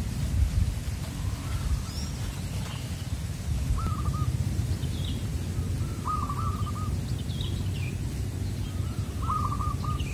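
Zebra dove (perkutut) cooing: three short phrases of quick repeated notes, a brief one about four seconds in, longer ones about six and nine seconds in. Small birds chirp higher up between them, over a steady low rumble.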